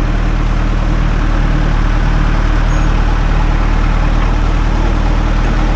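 Diesel engine of a small crawler loader running steadily at a fast idle.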